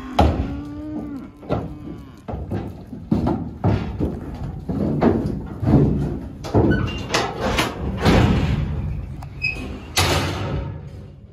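A bull's hooves thumping and clattering on the floor of an aluminium stock trailer as it steps in and moves about, a string of hollow knocks. A metal trailer gate slams shut near the end.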